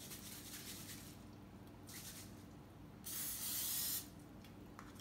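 Aerosol can of non-stick cooking spray spraying into a baking pan: a fainter hiss in the first second, then a loud, steady hiss lasting about a second, starting about three seconds in.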